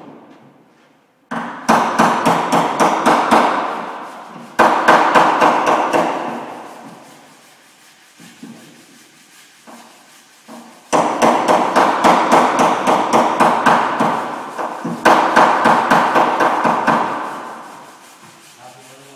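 Hammer striking a pickup's steel body panel in rapid runs of blows, several a second, during panel beating of dents. Four runs are heard, each fading as it goes, with pauses between.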